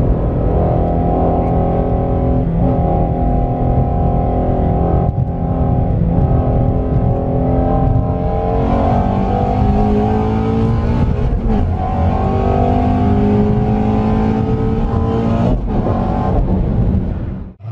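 Ford Mustang Shelby GT350R's 5.2-litre flat-plane-crank V8 and exhaust under hard acceleration, heard from inside the cabin. The engine note climbs in pitch and drops back at each upshift several times, then cuts off just before the end.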